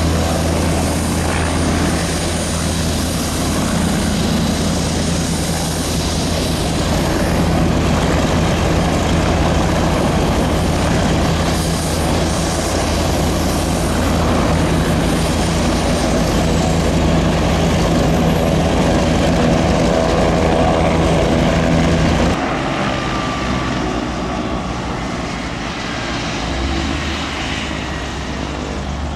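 AW169 twin-engine helicopter hovering low and settling onto the ground, its rotors and turbines making a steady, deep drone. About three-quarters of the way through the sound drops suddenly quieter, and a higher whine falls in pitch.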